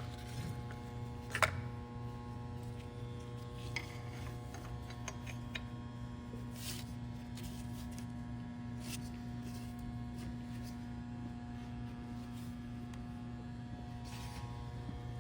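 Steady electrical hum, with a few light clicks and knocks from pump parts being handled; the loudest knock comes about a second and a half in.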